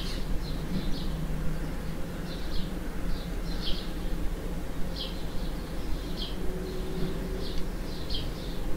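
Small birds chirping outside, short high chirps repeated irregularly.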